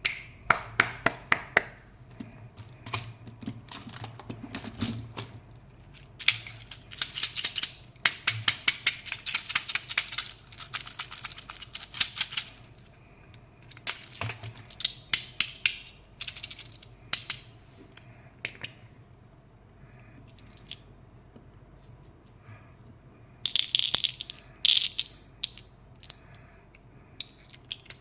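Candy packaging being handled and unwrapped: crinkling plastic wrappers and the clicking rattle of hard candies in their containers, in uneven bursts that are densest for several seconds after about six seconds in and again briefly near the three-quarter mark.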